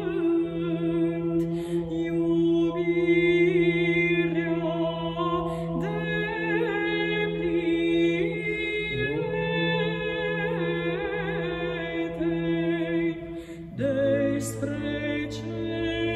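Solo woman's voice singing Byzantine (psaltic) church chant with an ornamented, wavering melody over a steady held drone, the ison, which drops to a lower note near the end.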